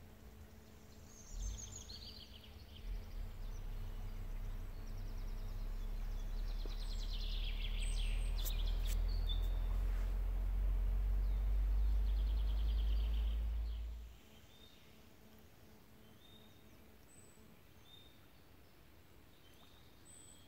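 Small birds chirping and calling over a low rumble. The rumble starts with a couple of low thumps, builds over several seconds, then cuts off suddenly about two-thirds of the way through, leaving only the birds.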